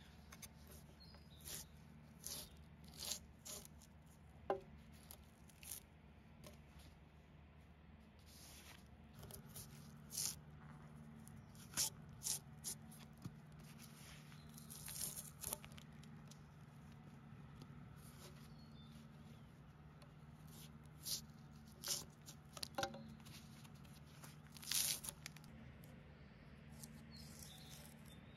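Drawknife stripping bark from a freshly cut, sappy log: short, irregular scraping and tearing strokes as strips of bark peel cleanly away from the wood.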